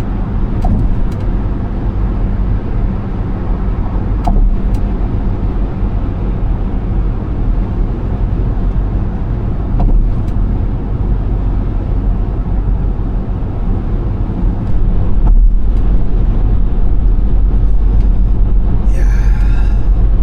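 Car cabin road and engine noise while driving at freeway speed: a steady low rumble of tyres and engine with a few faint clicks. It gets louder about 15 seconds in.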